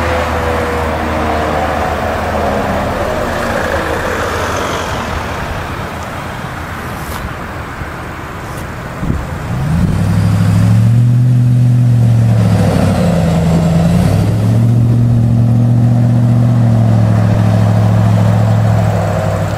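Supercharged Hummer H2 V8 driving past: engine and tyre noise falling in pitch as it goes by. About ten seconds in the engine comes in louder and close, its pitch rising and falling with the throttle.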